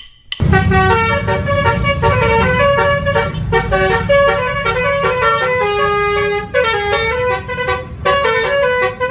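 Basuri telolet horn, a multi-trumpet musical bus horn, playing a quick tune of stepping notes, several sounding together, over a low rumble. It starts about half a second in and runs loudly on.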